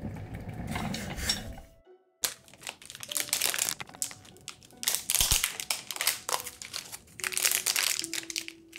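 A chocolate bar's foil-lined plastic wrapper being torn open and peeled back, a long run of sharp crinkling and crackling. Before it, in the first two seconds, a muffled low rustle.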